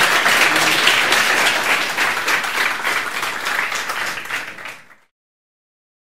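Audience applauding, a dense patter of many hands clapping that fades and then cuts off abruptly about five seconds in.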